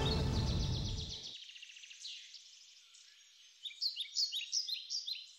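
Songbirds chirping and singing, with a busy run of quick repeated chirps starting past the middle. The tail of a music track fades out about a second in.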